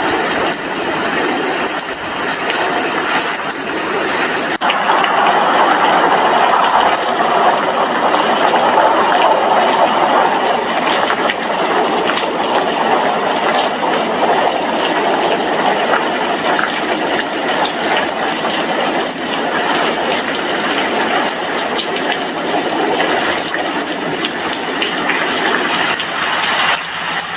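Heavy rain falling, a steady dense hiss that grows a little louder about four and a half seconds in.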